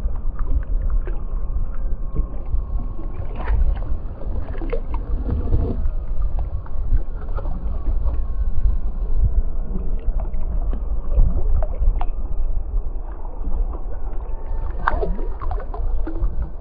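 Steady low rumble of a boat out on the water, with wind on the microphone, and scattered clicks and knocks throughout, clustered a few seconds in and again near the end.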